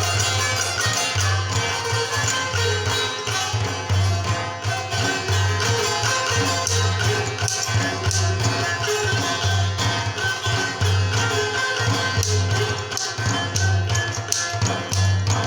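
Instrumental Chitrali folk music: a Chitrali sitar plucking a fast, busy melody over a steady hand-drum rhythm.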